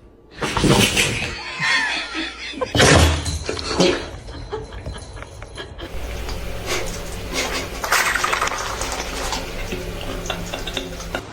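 Dogs sneezing: several short, sharp sneezes spread over a few seconds.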